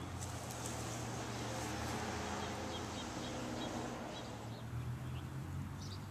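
Faint bird chirps, a few short high notes in quick succession about halfway through, over a steady low hum.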